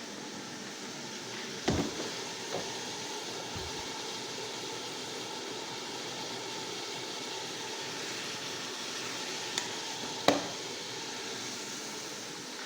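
Steady hiss from a pot of pumpkin cooking on the stove, with a few sharp knocks, likely a utensil on the pot, the loudest about ten seconds in.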